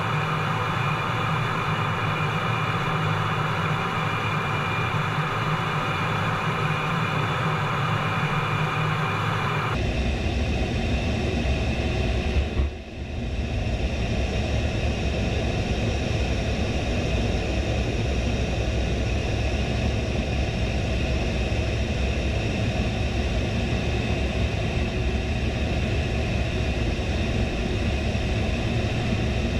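Steady in-flight cockpit noise of an A-10 Thunderbolt II, its two TF34 turbofan engines and airflow heard from inside the canopy. About ten seconds in, the sound changes abruptly to a deeper tone, with a brief dip a few seconds later.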